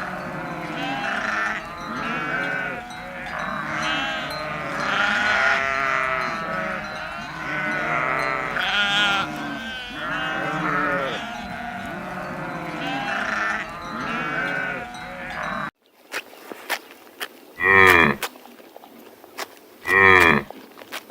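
A flock of sheep bleating, many overlapping calls at once. About three-quarters of the way through, the sound cuts to a quieter scene with a few clicks and two loud single animal calls about two seconds apart.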